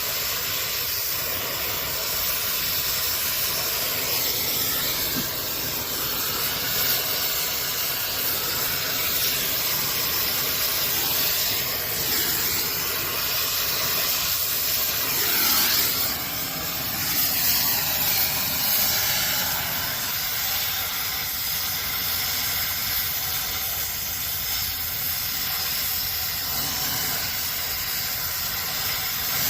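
Brazing torch flame hissing steadily on copper refrigerant line joints, swelling briefly a little past the middle.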